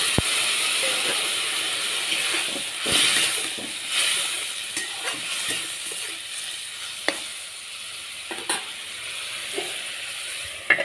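Papaya and potato pieces sizzling in a metal kadai while a flat metal spatula stirs and scrapes them, with a few sharp clinks of the spatula against the pan. The sizzle slowly dies down.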